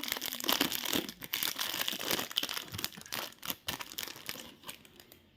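Chocolate wrapper crinkling and crackling as it is handled and unwrapped, a dense run of crackles that thins out near the end.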